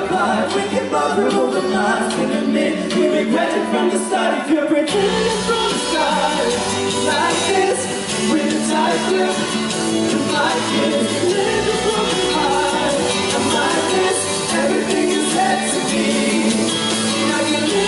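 Male pop vocalists singing live into microphones over a recorded backing track with a steady bass line, amplified through a stage PA.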